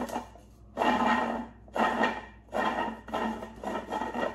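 3D-printed plastic screw threads rasping as a body tube is unscrewed by hand from the electronics bay. The rasps come in several twists, each under a second, with short pauses between.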